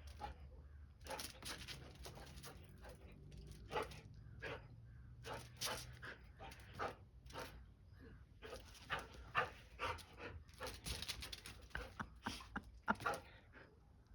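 Dogs playing chase, heard as a run of short, irregular dog noises with a few louder peaks.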